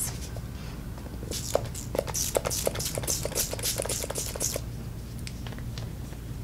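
MAC Fix+ setting spray, a pump mist bottle, sprayed at the face in a quick run of many short hissing sprays, about four or five a second, for roughly three seconds.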